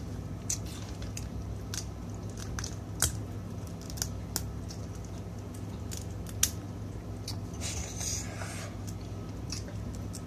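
Crab shells being cracked and picked apart by hand while eating, giving scattered sharp snaps and clicks, the loudest about six seconds in, over a steady low hum.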